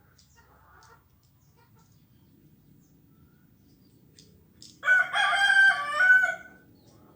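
A rooster crowing once, a single loud call of under two seconds about five seconds in.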